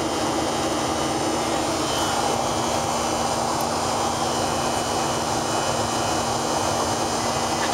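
Steady cabin noise of a Boeing 737-500 airliner climbing after take-off: the even rush and hum of its CFM56-3 turbofan engines and airflow, with a constant low drone underneath.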